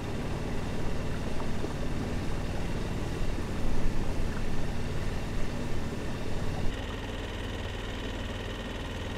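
Dinghy outboard motor running steadily, with its low engine hum changing and evening out about two-thirds of the way through.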